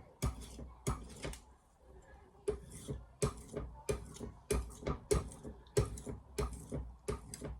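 Kitchen knife blade stroked back and forth across a wet sharpening stone: quick, rasping strokes about two to three a second, with a short pause about a second and a half in.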